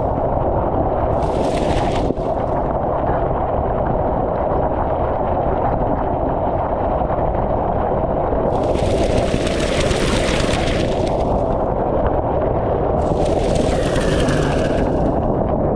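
Wind buffeting the microphone: a steady, loud, rough rumble. A hiss swells in three times, briefly near the start, then for about two seconds in the middle and again near the end.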